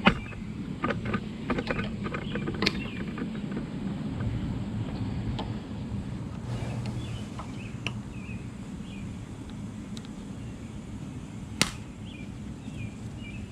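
Scattered metal clicks and knocks from working on a drive shaft universal joint, a few in the first three seconds, sparse after, and one sharp loud knock near the end.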